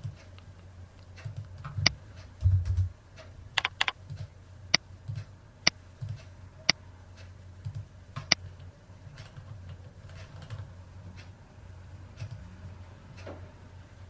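Computer keyboard and mouse clicks: scattered single sharp clicks, spaced about a second apart and thinning out after the first eight seconds, with a dull thump about two and a half seconds in.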